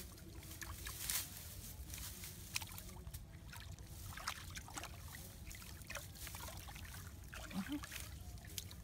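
Shallow water splashing and trickling in short, irregular bursts over a low, steady rumble.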